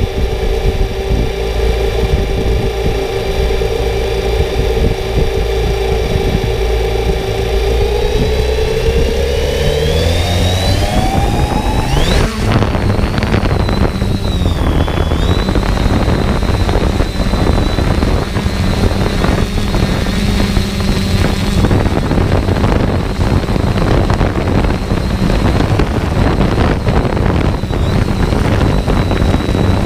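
An engine running with a steady whine that rises in pitch from about eight to twelve seconds in as it speeds up, then gives way to a loud rushing noise, wind or water, with the engine carrying on steadily underneath.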